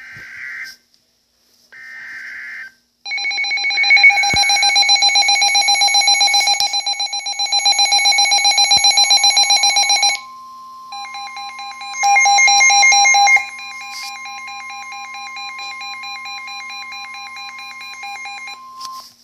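Emergency alert signal tones: two short warbling data bursts, then a loud, rapidly pulsing alarm tone like a ringing bell. A steady single tone near 1 kHz comes in about ten seconds in, alongside a second burst of the pulsing alarm, and holds until just before the end.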